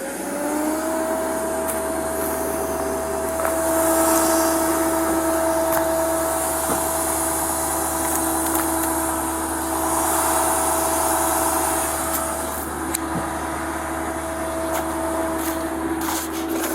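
Truck engine rising in speed about half a second in, then holding steady with a constant whine over a low hum.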